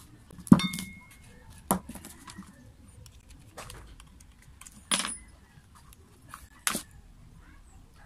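Parts of a dismantled angle grinder being handled: about five sharp knocks and clinks of its housing and metal parts, some with a brief metallic ring. The first, about half a second in, is the loudest.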